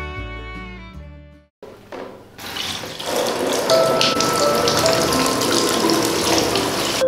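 Water from a handheld shower head spraying steadily into a plastic tub, starting about two and a half seconds in. Before it, background music fades out.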